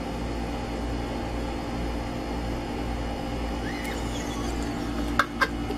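Steady low mechanical hum, with two sharp clicks close together near the end.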